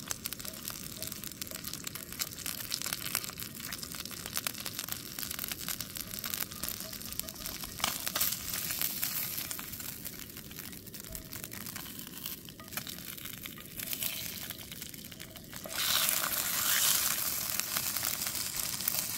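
Whole trout frying in olive oil in a frying pan: a steady crackling, spattering sizzle, getting louder for the last few seconds.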